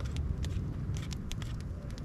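Wood campfire crackling: irregular sharp pops and snaps over a steady low rumble.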